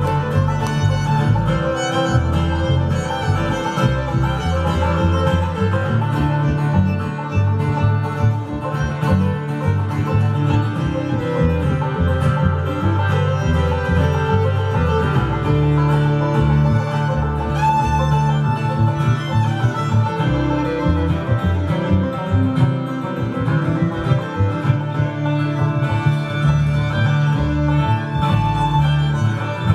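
Live string band playing a fast instrumental fiddle tune: fiddle lead over driving banjo and guitar, with a steady pulsing low end.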